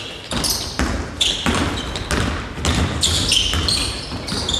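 A basketball being dribbled on a hardwood gym floor, with repeated bounces, alongside short high squeaks of sneakers as players cut and run.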